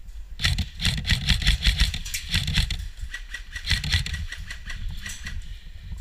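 Airsoft rifle firing in two long strings of rapid shots, a sharp clicking rattle, the first from about half a second in to nearly three seconds, the second from about three and a half seconds to five.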